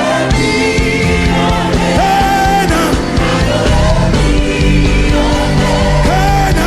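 Loud praise music from a live band, with voices singing held, wavering notes over a steady bass and drums.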